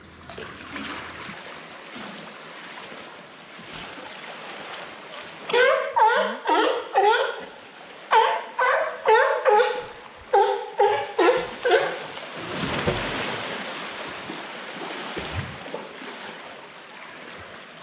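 California sea lion barking: a run of about a dozen short, pitched barks, roughly two a second, over a steady wash of water noise. A brief rush of noise follows the barks.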